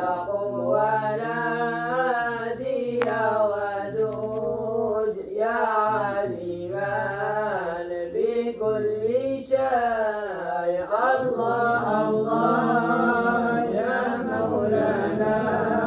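Moroccan madih nabawi, praise songs for the Prophet, chanted without instruments: a voice sings long, ornamented melodic phrases over a lower voice holding steady notes beneath.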